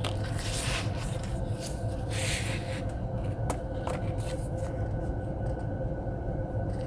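Paper and plastic sheets rustling and sliding as a vellum planner dashboard is laid over a laminated cover and adjusted, with a couple of light taps, over a steady low hum.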